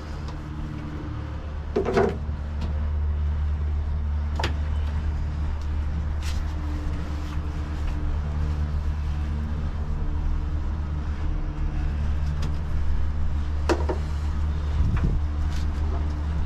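Mini engine being cranked slowly and steadily on its starter motor without firing, a sign of a weak battery. A few sharp clicks or knocks sound over it.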